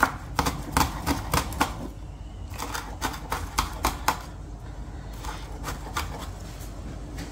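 Chef's knife finely chopping green chilies on a wooden cutting board: quick sharp taps of the blade on the board, about four or five a second, in two runs with a short pause between, then a few slower taps near the end.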